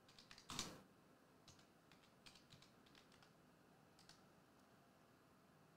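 Faint computer keyboard typing: a few scattered keystrokes, with one louder, brief knock about half a second in.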